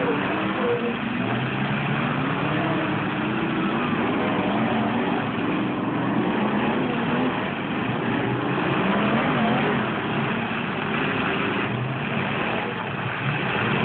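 Several demolition-derby pickup truck engines running and revving at once, their pitches rising and falling against each other over a dense, steady background of engine noise.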